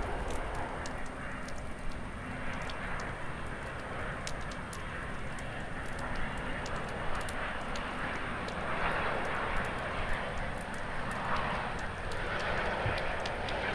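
Steady rain hiss with light ticks of drips, and the engines of a landing Airbus A350-941 growing louder in swells over the last few seconds as it approaches.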